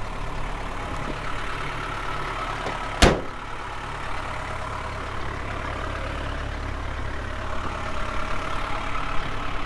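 The 1972 Nissan Caravan's 2200cc diesel engine idling steadily at operating temperature, with one sharp slam of a van door about three seconds in.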